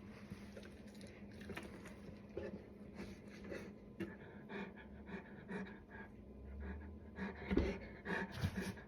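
Black Russian Terrier panting, with small scuffs and rustles of movement and a few louder knocks about seven to eight seconds in.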